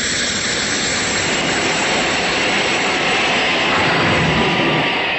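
Aircraft engine noise, a steady jet-like rush that swells a little near the end, as an aircraft approaches: a cartoon sound effect.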